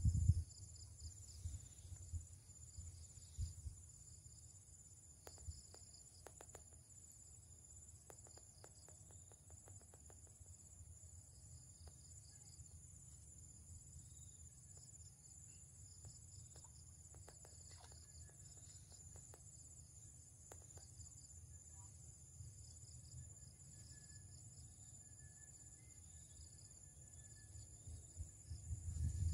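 Insects chirring steadily and high-pitched, one of them in a fast pulsing trill, over a faint low rumble, with a few soft clicks.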